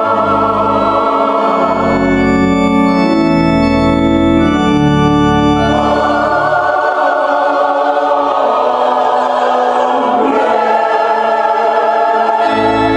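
Mixed church choir singing a sacred anthem with organ accompaniment. The organ's held chords and deep bass are prominent for the first few seconds, then the bass drops out while the voices carry on, and it returns near the end.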